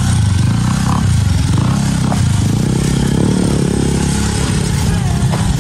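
Motorcycle engine of a motorized tricycle running steadily as it drives along a street, heard from inside the sidecar. The engine note swells briefly about three seconds in.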